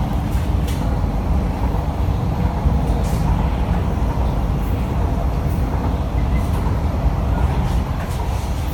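Inside a Kawasaki & CRRC Sifang C151B metro train car running between stations: a steady low rumble of wheels on the rails, with faint irregular clicks.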